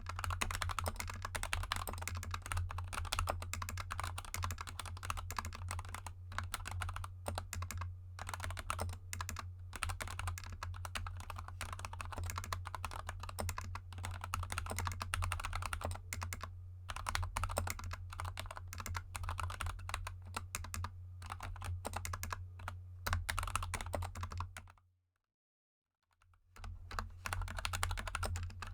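Fast, continuous typing on a GK64 mechanical keyboard with Gateron Yellow linear switches lubed with Krytox 205g0 and XDA keycaps, a rapid stream of keystrokes over a low steady hum. About 25 seconds in the sound cuts to dead silence for a moment, then the typing resumes.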